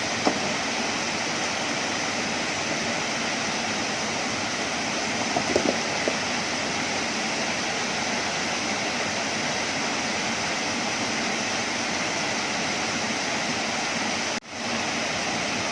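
Rushing water of a waterfall, a steady even hiss, with a few faint knocks; the sound cuts out for a moment near the end.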